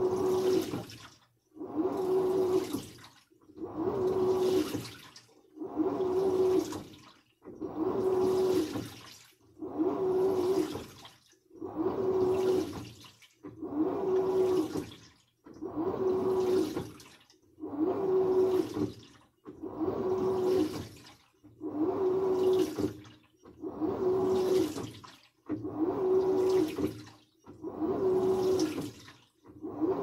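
Samsung washing machine on a wash cycle with a comforter inside, the drum turning in strokes about every two seconds: each stroke brings a steady hum and the swish of water through the wet comforter, with a short pause between strokes.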